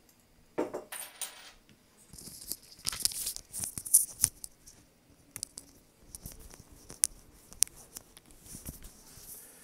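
Loose coins rattling and clinking in a small glass jar, with a few coins clinking onto a wooden tabletop. The jingling is thickest about two to four seconds in, followed by scattered single clinks.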